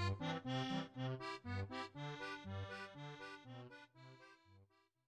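Background music of short pitched notes over a steady bass line, fading out near the end.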